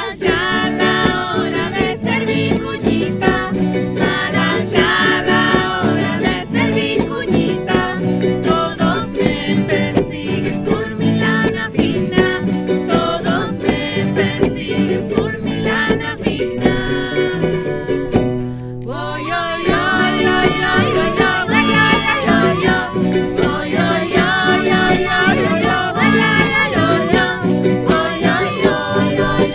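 Women's voices singing an Andean folk song over a strummed charango and guitars. The accompaniment thins briefly about two-thirds of the way through, then the singing comes back in.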